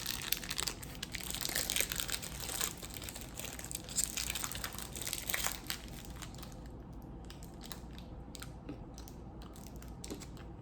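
Cadbury Boost bar wrapper crinkling and tearing as it is opened for about six seconds, then a few faint crunching bites and chewing of the bar.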